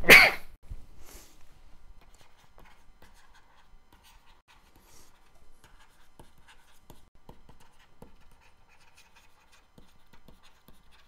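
Stylus writing on a tablet screen: faint scratching with scattered light taps as each stroke is drawn. A short, loud rush of noise comes at the very start.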